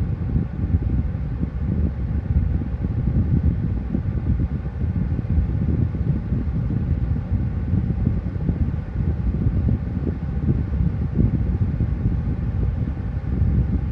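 Aerospeed BX100 box fan running steadily: a low rush of moving air with a faint, even hum above it.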